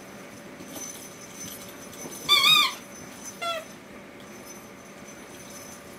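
A young French bulldog–Boston terrier cross puppy gives a loud, high-pitched wavering yelp about two seconds in, then a second, shorter yelp that falls in pitch a second later.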